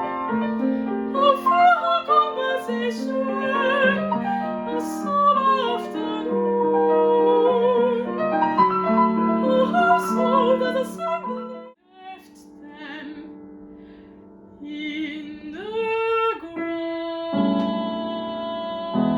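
Classical soprano singing with vibrato over piano accompaniment. About twelve seconds in the music breaks off and a softer passage follows, then a short sung phrase and sustained piano near the end.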